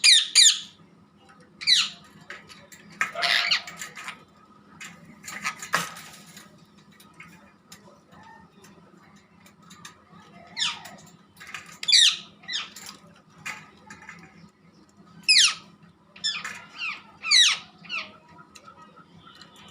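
Parrot giving short, shrill squawks, each a quick sweeping note, in irregular clusters with pauses between, over a steady low hum.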